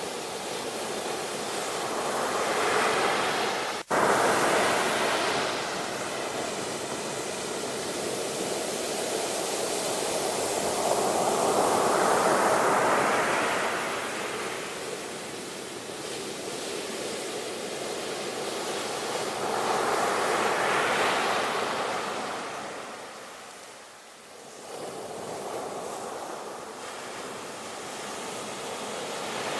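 Sea waves breaking and washing up a shore, swelling and fading roughly every eight to nine seconds, with a momentary dropout about four seconds in.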